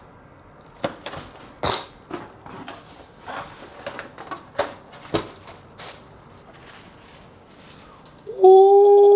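Handling of a new pair of basketball shoes and their box and packing: scattered clicks, taps and rustles. Near the end a loud sustained pitched note lasts about a second and bends upward as it ends.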